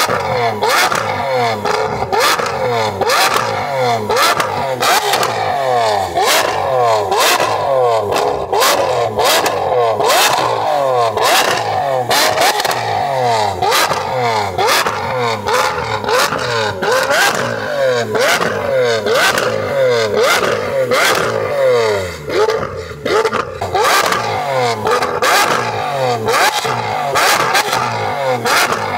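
Lamborghini Aventador SVJ's naturally aspirated V12 being free-revved at a standstill through an equal-length race exhaust with an X-pipe, one quick throttle blip after another. Sharp exhaust pops and bangs crackle through it, the overrun backfires that throw flames from the tips.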